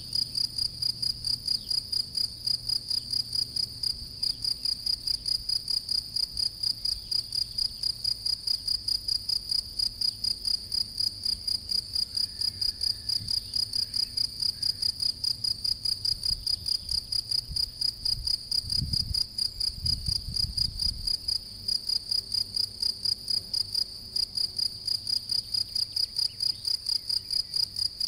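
European field cricket (Gryllus campestris) singing: an even, rapid run of high, pure-toned chirps that goes on without a break.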